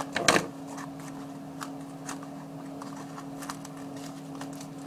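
Cardboard and paper of a homemade dollhouse being handled. There is one loud crinkle about a quarter second in, then faint scattered rustles and clicks over a steady low hum.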